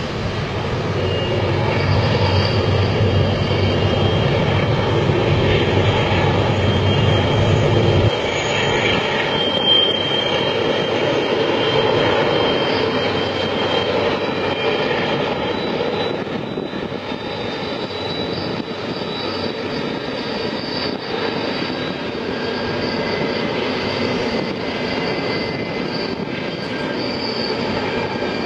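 Long double-stack container freight train rolling along a curving track: a steady rumble of the passing wagons, with a deeper rumble that drops away about eight seconds in. Thin, high squealing tones of wheels grinding on the curve run through it.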